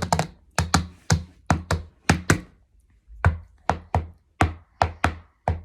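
A hand repeatedly smacking kinetic sand on a tabletop: about fifteen sharp slaps, often in quick pairs, with a short pause a little before the middle.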